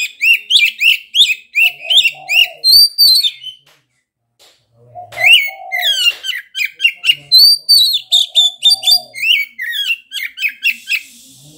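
Oriental magpie-robin (kacer) singing loud, rapid runs of sharp rising and falling whistled notes in two bursts, with a gap of about a second and a half in the middle.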